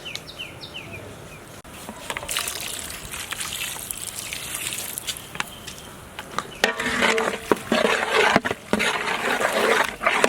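Water being poured into a cooking pot of onion, tomato and cashew masala, a splashing pour that grows louder about two-thirds of the way through.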